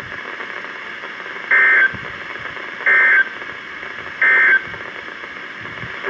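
Midland NOAA weather radio sounding three short bursts of two-tone digital SAME data about a second and a half apart, over steady radio hiss. The three bursts are the End of Message code that closes an Emergency Alert System warning broadcast.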